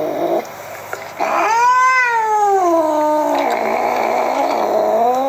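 A cat yowling in long, drawn-out wails that rise and fall in pitch. There is a short break about half a second in, and a rougher, noisier stretch after the long middle wail.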